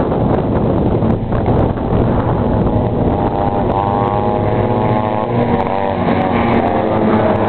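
Vintage racing snowmobiles' two-stroke engines running at high revs, their engine notes coming through clearly about three and a half seconds in as two sleds race close past, the pitch shifting as they go. Wind noise on the microphone.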